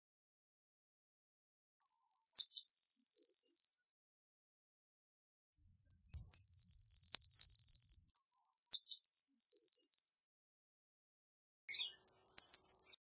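Eurasian blue tit singing: four separate phrases, each a few high, thin notes followed by a fast, slightly lower trill. The last phrase begins near the end and is cut off.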